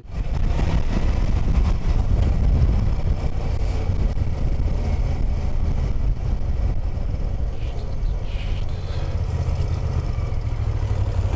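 Cruiser motorcycle's engine running steadily while riding, with a haze of wind and road noise over it.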